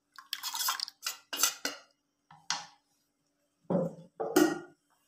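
Metal spoon scraping and tapping the inside of a stainless-steel mixer-grinder jar to empty out the last of the ground rice batter: a quick run of clinks and scrapes over the first two seconds and one more a little later, then two duller knocks near the end as the jar and spoon are set down.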